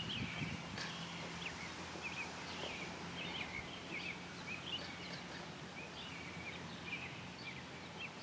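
Small birds chirping, short calls repeating throughout over a quiet outdoor background, with a faint steady low hum underneath.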